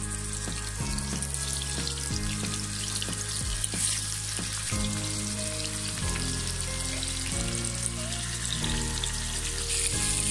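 Rui (rohu) fish steaks sizzling as they shallow-fry in hot oil in a nonstick pan, a steady crackling hiss, with background music of held notes underneath.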